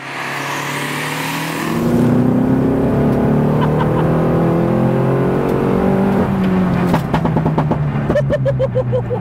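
Turbocharged B48 four-cylinder engine of a heavily modified Mini JCW Challenge 210 race car under hard driving, its pitch rising and dropping as it pulls through the gears. Near the end comes a rapid stutter of about half a dozen short pulses.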